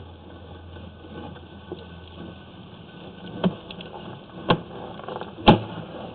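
Sewer inspection camera rig being pushed down a drain line: a steady low hum with three sharp knocks about a second apart, the last the loudest.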